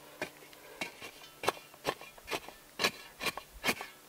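Steel shovel blade scooping and scraping dry, gritty dirt and tossing it back over a campfire pit to smother and bury it: a quick run of about nine short scrapes, roughly two a second.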